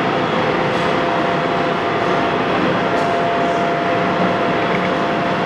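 Heavy-duty Axelson Model 25 engine lathe running at 212 RPM, its geared headstock driven by the 25 hp main motor spinning a 32-inch four-jaw steel chuck: a steady mechanical hum with a faint, even whine held through most of it.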